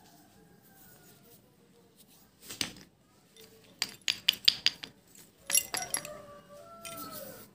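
Hard, dry pieces of broken slate clinking and knocking against each other as they are handled on a pile: a single click, then quick clusters of sharp clinks.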